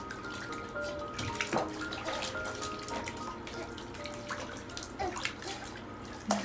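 Water splashing and lapping in a baby's bathtub, with scattered small splashes, under a soft melody of short tinkling notes.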